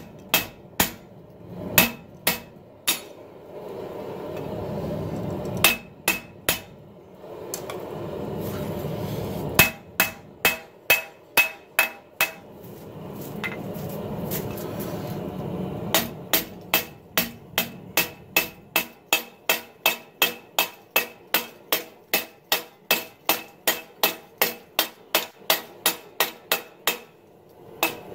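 Hand hammer striking a red-hot 80CrV2 steel knife blade on a small cast steel anvil, drawing out the blade, with sharp ringing blows. The blows come in short runs at first, then a long steady run of about three blows a second through the second half. A low steady rushing noise fills the pauses between runs.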